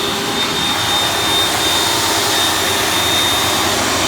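Beldray Turbo Swivel vacuum cleaner running steadily at full power, just switched on: a loud rush of air with a high, steady motor whine.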